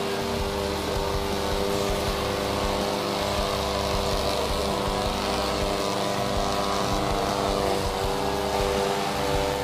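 Briggs & Stratton Vanguard 16 hp V-twin petrol engine of a MARINA Raptor 800B tracked remote-controlled mower, running steadily while the mower cuts grass.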